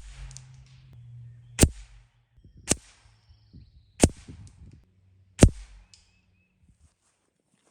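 Gamo Whisper Swarm Mach 1 .22 air rifle firing four sharp shots, about one to one and a half seconds apart, over a low steady hum.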